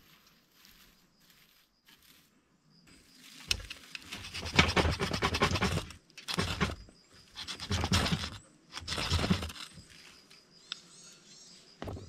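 Four rough scraping strokes, one long and three shorter, as a fire starter is struck into shredded bark tinder in a campfire stand until the tinder catches.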